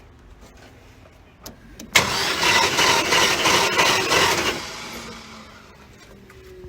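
Engine turned over on the starter for about two and a half seconds, starting abruptly and dying away, while a compression test is taken on cylinder 7, which shows no compression.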